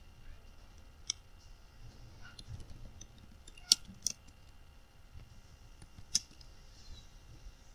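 Computer keyboard keystrokes: scattered sharp key clicks, the loudest a pair about four seconds in and another near six seconds, over a faint low room rumble.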